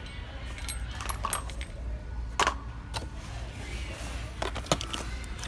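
Scattered sharp clicks and clinks of toy boxes and packaging being handled on store shelves, the loudest about halfway through, over a steady low hum.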